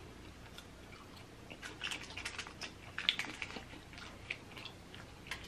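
Faint chewing of a battered fried mushroom: soft crunches and wet mouth clicks, clustered between about one and a half and four and a half seconds in.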